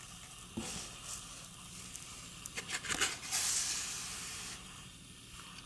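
Cardboard board book being opened and handled: a soft knock, a few quick taps and clicks, then a longer rustling brush of cover and pages about three seconds in.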